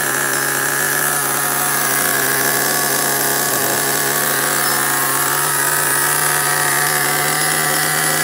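Hot Bodies Tornado's small glow-plug nitro engine running at a steady idle on 14-year-old fuel, a loud, even buzz that holds one pitch.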